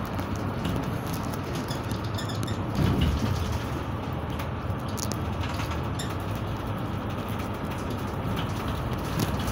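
Cabin noise of a moving bus: steady engine and road noise, with light rattling clicks from the interior and a louder thump about three seconds in.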